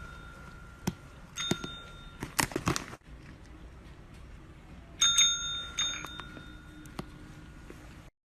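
Desk service bell struck by a cat's paw, ringing out about a second and a half in and again about five seconds in, the second ring the loudest, with a fainter ring just after it. Between the rings comes a quick cluster of light knocks.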